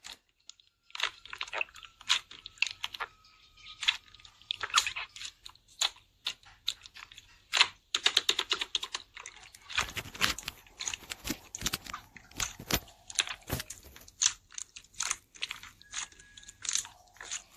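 Hands squeezing and pressing slime, making quick irregular wet clicks, pops and crackles.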